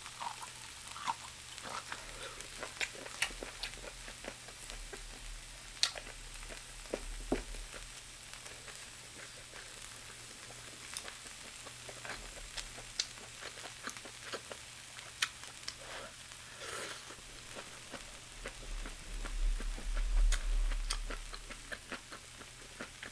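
Close-miked chewing of chicken gizzards, with many scattered crisp clicks and crunches, over a faint steady hiss.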